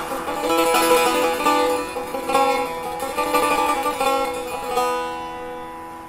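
Solo setar, a long-necked Persian lute, plucked in quick runs of notes. About five seconds in the picking stops and the last notes are left to ring and fade.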